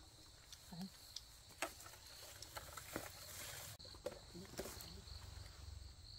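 Leaves and twigs rustling and snapping in scattered clicks, with a longer rustle near the middle, over a steady high insect chirr.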